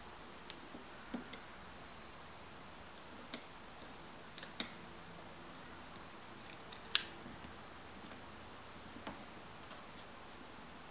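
Scattered light clicks and ticks, irregularly spaced, from a Rockit 88 delid tool being handled while its push screw is turned with a hex key. The sharpest click comes about seven seconds in.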